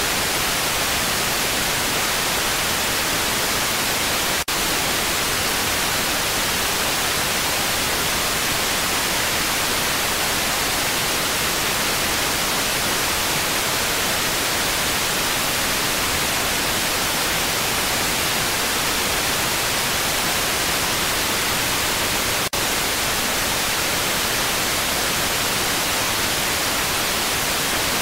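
Steady loud static hiss filling the audio track, with no commentary or crowd. It cuts out for an instant twice, about four seconds in and again about twenty-two seconds in.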